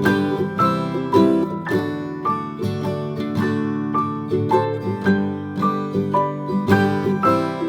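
Instrumental background music on plucked strings, with a steady picking rhythm of short notes.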